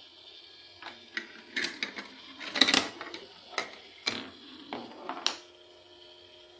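Hard plastic toy pieces clattering, in an irregular run of about a dozen sharp clicks and knocks with the loudest near the middle. A faint steady hum sits underneath.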